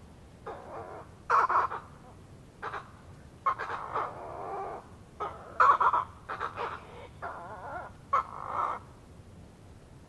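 Australian white ibises giving a series of short, harsh, croaking grunts in irregular bursts, which stop near the end.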